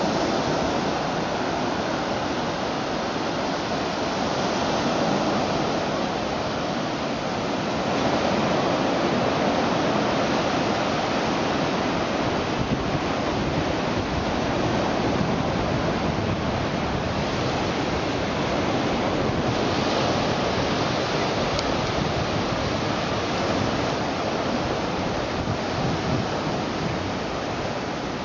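Ocean surf washing steadily onto the beach, swelling and easing in gentle waves, with wind on the microphone.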